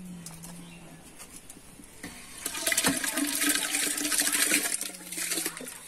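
Washed wet rice tipped from a metal bowl into an aluminium pot of hot water, sliding and splashing in with a rushing pour that starts about two seconds in and lasts nearly three seconds.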